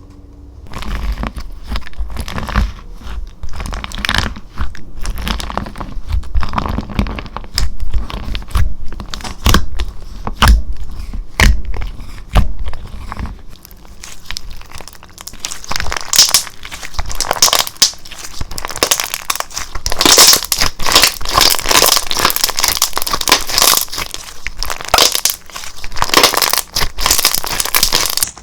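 Slime being pressed, stretched and squished by hand, giving a dense, continuous run of crackles, pops and crunchy clicks that grows busier and brighter about halfway through.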